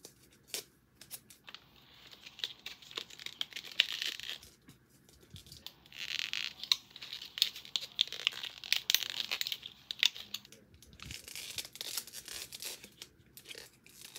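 Plastic packaging on a slime cup being torn and crinkled by hand, in two bouts of crackling.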